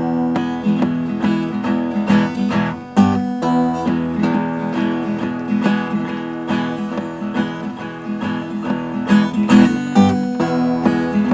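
Acoustic guitar strummed steadily in a regular rhythm, the instrumental intro of a song before the singing comes in.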